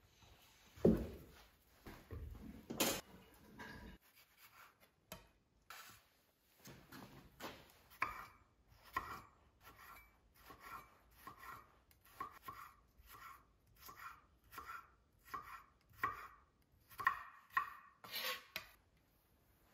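Chef's knife slicing and dicing raw radishes on a wooden cutting board: a steady run of crisp knife strikes on the board, about two a second. The run is preceded by a couple of heavier knocks in the first few seconds.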